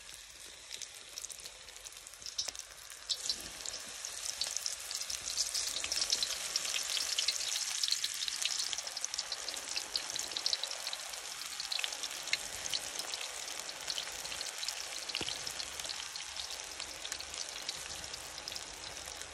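Spinach pakora batter frying in hot oil in a two-handled iron wok (karahi). The oil sizzles and crackles as spoonfuls of batter go in, building up over the first five or six seconds and then holding steady.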